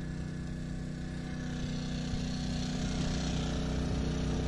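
Small portable generator engine, a Ryobi 2200-watt, running steadily to power the boat's LED bowfishing lights. It gets a little louder from about halfway through.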